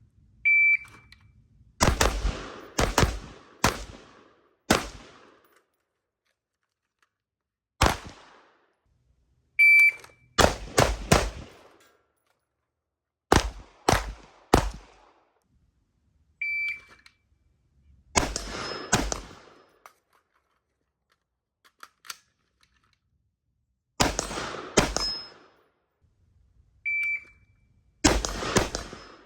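A shot timer's electronic start beep sounds four times, and each beep is followed by a string of AR-15 rifle shots, some fired singly and some in quick pairs.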